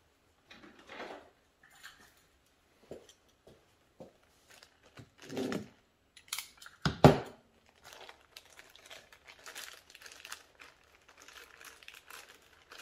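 Crinkling and tearing as a paper gasket from a carburetor rebuild kit is cut and torn loose with a dull knife, in short scattered scrapes and rustles, with one sharp knock about seven seconds in.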